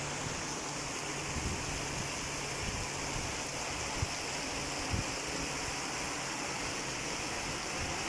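Steady rain falling, an even hiss throughout, with two small knocks about four and five seconds in.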